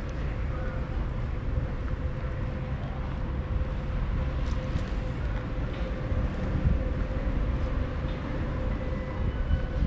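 Steady low outdoor rumble, with a faint constant hum running through it.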